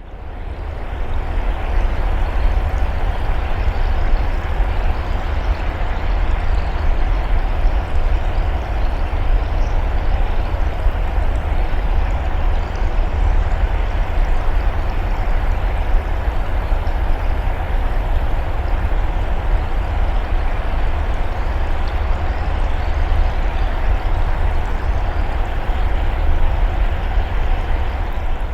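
Underwater ambience: a steady deep rumble under a rushing, gurgling wash of water, fading in over the first second.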